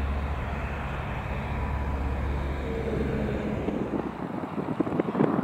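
Single-engine piston light aircraft droning as it flies past, a steady low hum that drops away about four seconds in, after which wind buffets the microphone.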